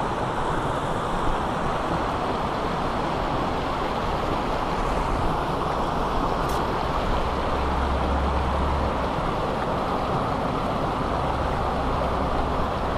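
Steady rush of a small mountain creek tumbling through pocket water, with a brief low rumble about halfway through and again near the end.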